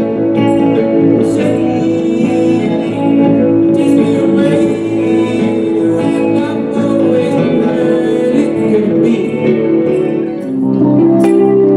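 A soft-rock song played live on two electric guitars through small combo amplifiers, with a man singing.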